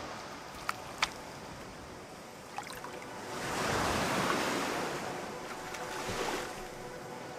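Surf on a sandy beach: a wave breaks and washes up the shore, swelling about three seconds in and then easing off, with a few faint clicks in the first seconds.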